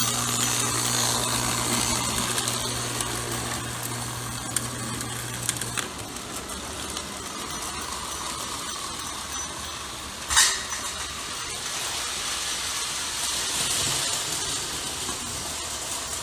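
Lionel toy electric train running on its track: a steady mechanical whirr with a low hum that cuts off about six seconds in, and one short sharp sound about ten seconds in.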